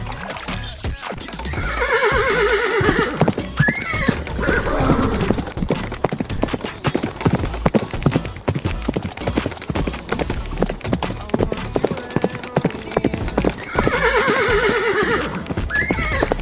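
A horse whinnying twice, about two seconds in and again near the end, each call wavering and falling in pitch, over a steady clip-clop of hooves.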